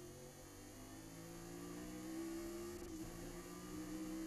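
Chevrolet Nova race car's V8 engine under way on track, heard muffled from inside the cockpit as a steady drone whose pitch climbs slowly, with a brief dip about three seconds in.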